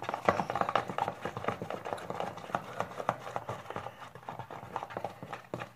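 A utensil stirring a glue and shaving-cream slime mixture in a plastic container: a rapid, irregular run of clicks.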